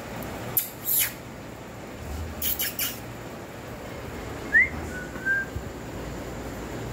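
A small bird's short rising chirp about halfway through, followed by a brief whistled note, over a few soft rustling hisses earlier on.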